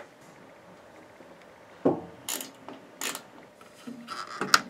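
Hand tools being handled while a control panel is unfastened: a few short clicks and knocks from a socket set, then a quick run of rattling clicks near the end.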